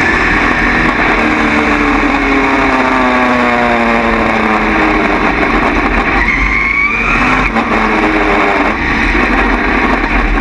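Dirt late model race car's V8 engine heard from inside the cockpit, its pitch falling as the driver lifts off, then rising again as he gets back on the throttle about six seconds in. Loud wind and tyre noise on dirt run underneath.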